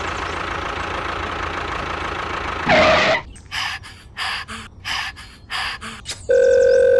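A small walk-behind tractor engine running steadily, then a brief loud gasp-like sound effect about three seconds in. After it come about six short scraping strokes of a pick digging into sand, roughly two a second, and a steady beep near the end.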